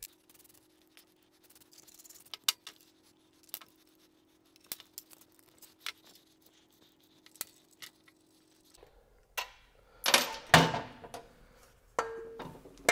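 Thin aluminium factory skid plate being worked loose and taken off the underside of a Harley-Davidson Pan America's engine. Faint scattered ticks, then about nine seconds in a louder metallic clatter and scraping, and a short ringing clink near the end.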